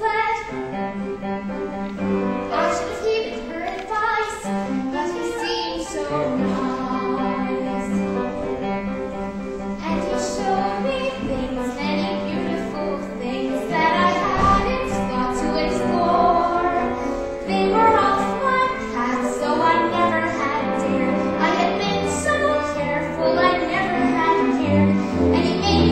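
A young female voice singing a solo song over instrumental accompaniment.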